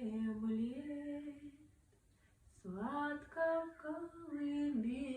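A woman singing a Russian lullaby unaccompanied, slow held notes with gentle glides between them, pausing for a breath about two seconds in before the next line.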